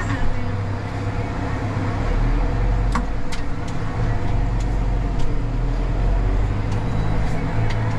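Tractor engine running steadily as heard from inside the cab while driving, with a few light clicks and rattles. The engine picks up slightly near the end as the revs rise.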